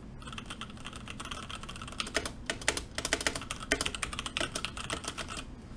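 Typing on a James Donkey 619 mechanical keyboard with Gateron red linear switches: a fast, irregular run of key clicks and keycap clatter, picking up into a dense flurry about two seconds in.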